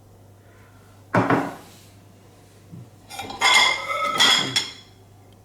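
Dishes and cutlery clinking and clattering as they are handled while being checked after a dishwasher wash: one knock about a second in, then a longer clatter with ringing tones about three seconds in.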